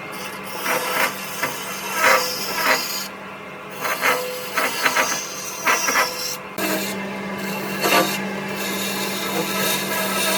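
Wood being worked by hand: repeated short rubbing and scraping strokes with occasional knocks, over a steady low hum.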